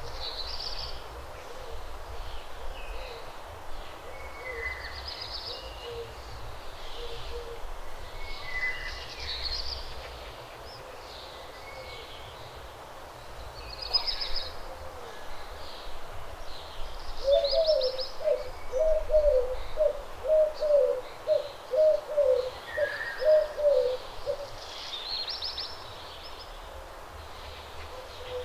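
Dawn chorus of songbirds, with short high chirps and whistles throughout. A little over halfway through, a bird gives a run of about a dozen low hooting notes, roughly two a second, the loudest sound. A low steady rumble sits underneath.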